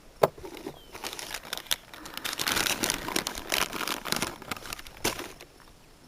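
A plastic lure packet crinkling and rustling as it is handled and dug through, after a sharp click near the start.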